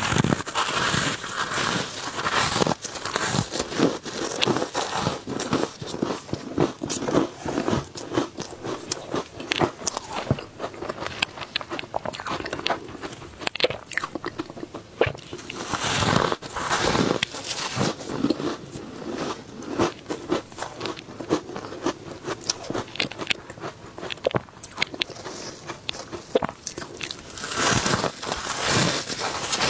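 Close-miked biting and chewing of soft, powdery ice dusted with matcha powder: dense crunching and crackling throughout, heaviest just at the start, about halfway through and near the end, where fresh bites are taken.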